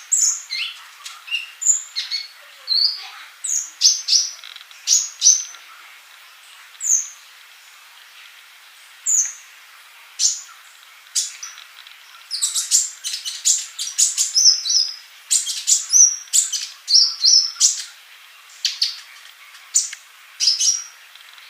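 Male olive-backed sunbird (kolibri ninja) singing: rapid, high, thin chirps and short trills in bursts. They thin out to scattered single notes for several seconds in the middle, then come thick again.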